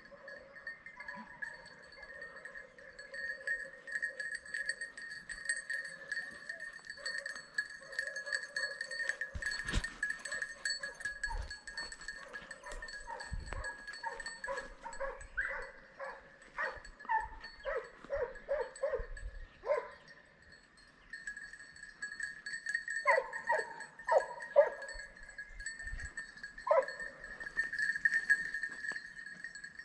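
Hunting dogs barking in short bursts, in clusters that grow louder in the second half, over a steady high ringing.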